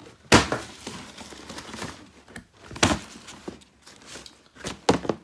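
A cardboard shoe box and its paper being handled: crinkling and rustling, broken by a few sharp knocks. The loudest knock comes about a third of a second in, another near three seconds, and two close together near the end.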